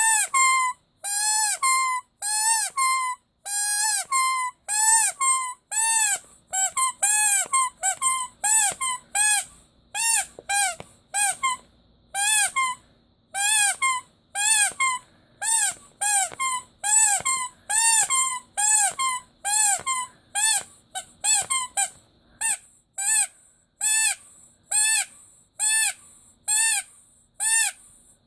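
Rubber squeaky toy squeezed over and over, each squeeze giving one squeak that rises and falls in pitch, about one to two squeaks a second.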